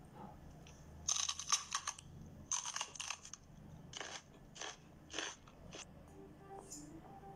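German shepherd nibbling at a cat's head fur with its front teeth: a run of short, crisp chewing bites, the later ones coming about every half second.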